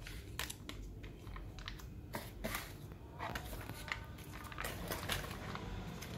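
Foil-plastic sachets crinkling and rustling as they are handled and packed into a small cardboard box, in irregular short crackles.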